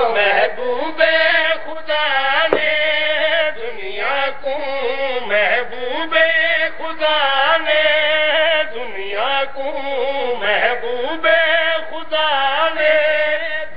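Men chanting a Shia devotional qaseeda, with long, wavering melismatic phrases drawn out between breaths and no instruments.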